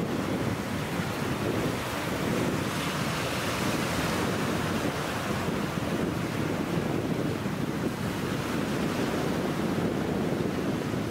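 Small ocean waves breaking and washing up the shore in a steady rush of surf, which cuts off abruptly at the end.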